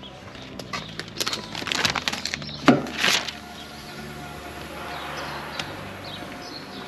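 Footsteps and irregular knocks while walking along a parked articulated truck, with two louder knocks a few seconds in, over a steady low hum.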